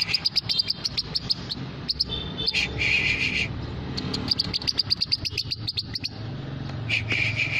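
Songbird calling: fast runs of high, sharp chipping notes, broken twice by a short buzzy trill about half a second long, over a steady low hum.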